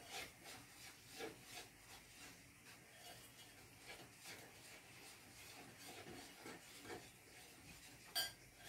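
Whisk stirring and scraping against a glass bowl of thick egg, sugar and flour batter, faint irregular strokes; a sharper click near the end.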